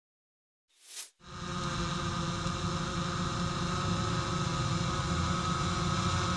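A brief whoosh about a second in, then a steady machine hum with several held tones over a low rumble.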